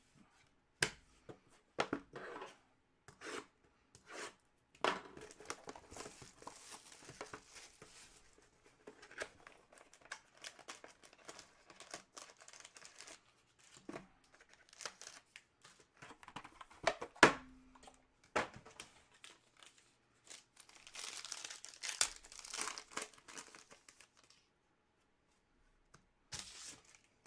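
Plastic wrapping of a trading-card pack or box being torn open and crinkled, in stretches, with scattered sharp clicks and taps as the cards are handled.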